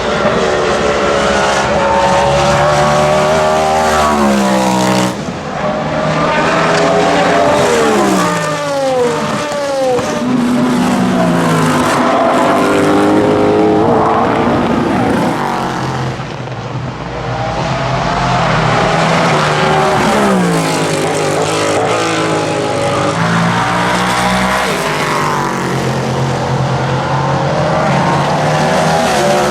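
Cadillac V-Series.R GTP's 5.5-litre naturally aspirated V8 race engine running at high revs past the track edge. Its pitch drops sharply several times as it brakes and downshifts, then climbs again as it accelerates through the gears.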